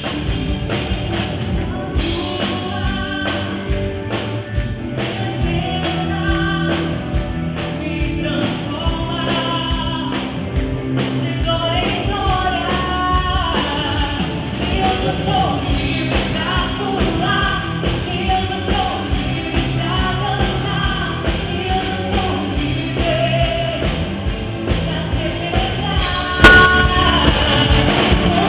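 Gospel rock song with a singing voice over a drum kit and band, at a steady beat. A sharp knock cuts through about two seconds before the end.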